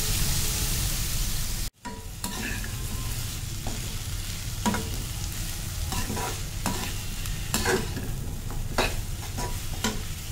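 Chopped vegetables frying in oil in a pan: a steady sizzle that drops out for an instant about two seconds in, then carries on under irregular scrapes and taps of a metal slotted spatula stirring against the pan.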